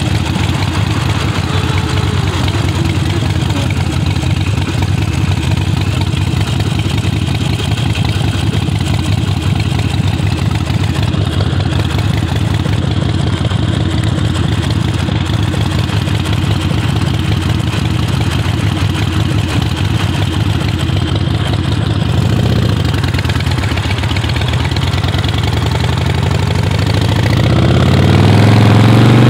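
Harley-Davidson Sportster V-twin idling steadily. It revs briefly about three-quarters of the way in, and near the end the engine note climbs and grows louder as the bike pulls away.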